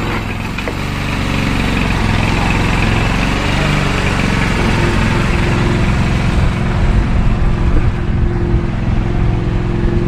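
Small engine on an outrigger fishing boat running steadily, getting a little louder over the first second or so.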